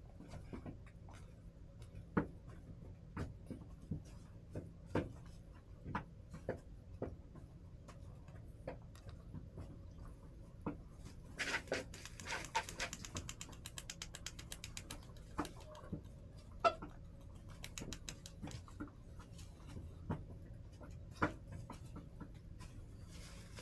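Hens pecking and scratching in the coop: irregular taps and clicks, with a quick rattling run of clicks about twelve seconds in.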